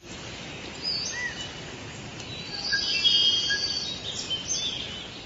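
Outdoor ambience: a steady background hiss with scattered small bird chirps and short whistles, busiest about halfway through.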